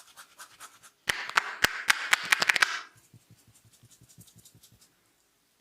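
Hands working through hair and scalp in a head massage: a loud, dense scratching crackle with sharp clicks for about two seconds, then a quick run of softer taps that fades out.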